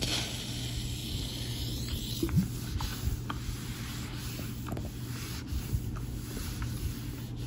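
Steam iron sliding over a heat-transfer vinyl sheet on a hoodie: a quiet, steady rubbing with a few faint ticks.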